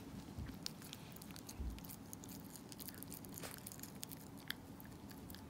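Small dog gnawing on a chew: faint, irregular clicks and crunches of teeth working the chew, with a few soft low thuds.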